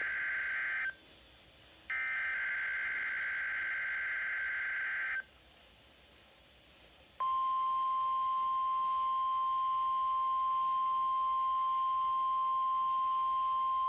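NOAA Weather Radio test signal. First come two bursts of the buzzing, two-pitch SAME digital header: one ends about a second in, and the second lasts about three seconds. After a short pause, the steady single-pitch 1050 Hz warning alarm tone starts about seven seconds in and holds.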